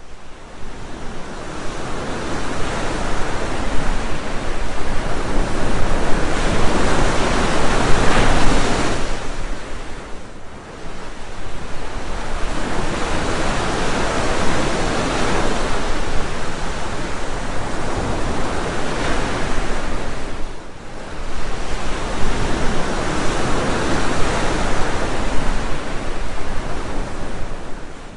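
Ocean surf: a loud, steady rushing wash of breaking waves that swells and eases, dropping away briefly about ten seconds in and again about twenty seconds in.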